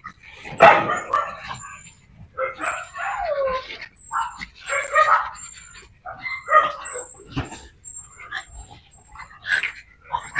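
A group of small dogs, pugs and mixed breeds, barking and yipping in short bursts every second or two as they wrestle in play.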